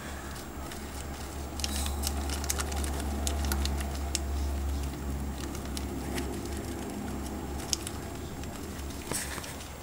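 Dwarf hamster biting and tugging at a pocket tissue packet's plastic wrapper: irregular crinkling and crackling of the plastic, with rustling in the wood shavings, over a low hum.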